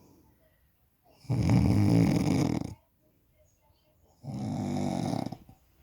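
Snoring: two long, pitched snores about three seconds apart, each lasting over a second, with quiet breathing pauses between them.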